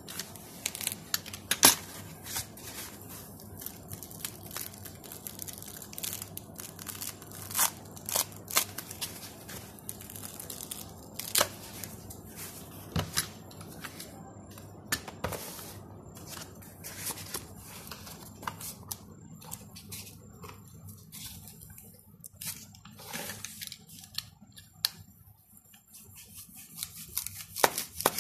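Utility knife blade slicing and tearing through white packing foam, a scratchy rustling with sharp clicks scattered through it. The cutting thins out for several seconds past the middle, then picks up again near the end.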